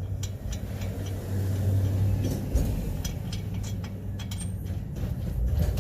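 Hand tools clinking and knocking irregularly against metal parts of a pickup's wheel hub, over a steady low hum.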